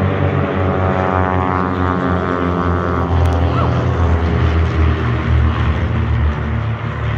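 Loud drone of the piston engines and propellers of a formation of nine propeller planes passing low overhead. The pitch drops as they go over.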